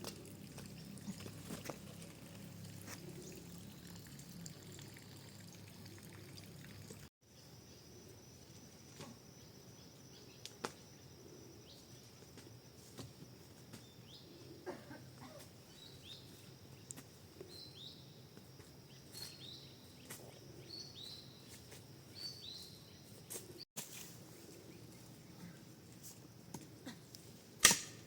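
Faint outdoor ambience. In the middle a steady high buzz runs, with a bird calling short falling notes about once a second.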